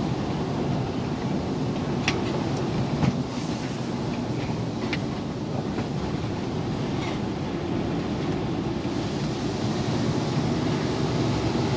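Steady engine and road noise heard inside a lorry cab as it drives slowly along a wet lane, with a few light ticks.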